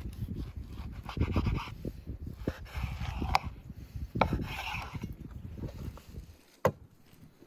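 A kitchen knife sawing through raw lamb tail fat on a wooden cutting board, in repeated strokes. There is one sharp knock near the end.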